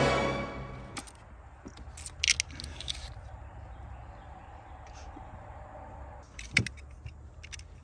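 Scattered metallic clicks, clinks and short rattles, like tools or small parts being handled, with the strongest clinks about two seconds in and again near the end. The tail of background music fades out in the first second.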